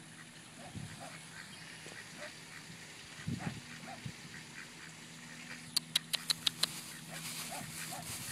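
American Pekin ducks giving soft, scattered quacks as they walk. About six seconds in comes a quick run of about seven sharp clicks.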